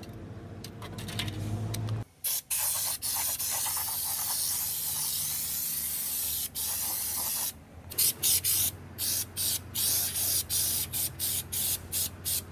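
Compressed-air spray gun with a screw-on canister spraying coating along a car's bare rocker panel: a steady hiss starting about two seconds in, then quick short bursts about three a second for the last few seconds.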